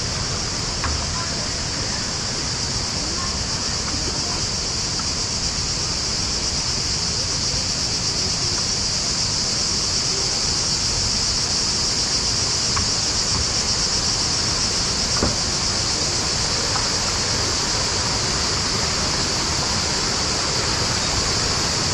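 Steady rushing of falling water, with an even high-pitched hiss over it.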